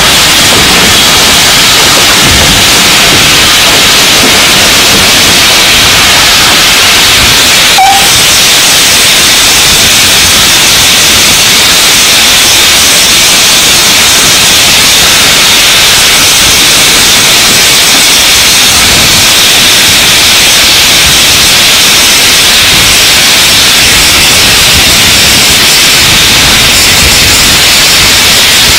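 Wind rushing over the microphone of a camcorder held out of a moving train's carriage window: a loud, steady hiss that covers almost everything else, broken only by a brief high blip about eight seconds in.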